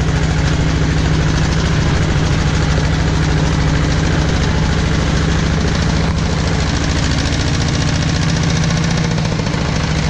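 Single-cylinder diesel engine of a two-wheel walking tractor chugging steadily as it pulls a loaded passenger trailer.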